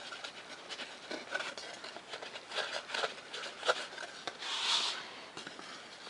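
Foam-board parts being handled and taped together: scattered light clicks and rubbing, with a brief hiss about four and a half seconds in.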